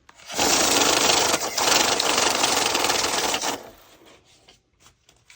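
Electric bill-counting machine riffling through a stack of banknotes, a dense rapid whirr that runs for about three seconds and stops abruptly.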